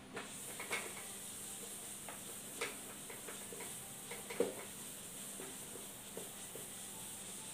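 A felt board eraser rubbing across a whiteboard: soft wiping with scattered light knocks and taps, the sharpest about four and a half seconds in.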